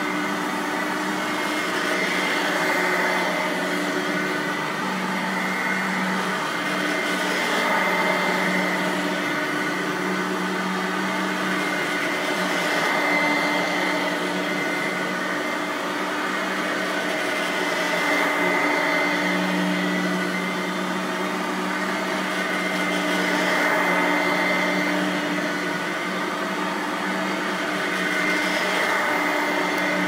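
Simplicity Freedom Sand Machine F3700 upright vacuum running on carpet. Its direct-air motor hums steadily under the brush roll's noise, swelling and easing about every five seconds as it is pushed back and forth.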